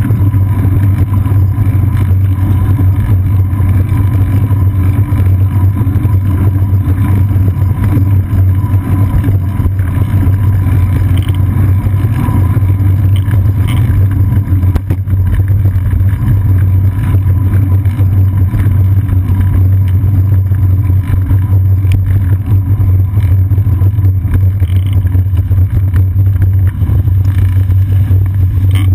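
Loud, steady low rumble of road vibration and wind buffeting picked up by a seat-post-mounted GoPro Hero 2 on a moving bicycle.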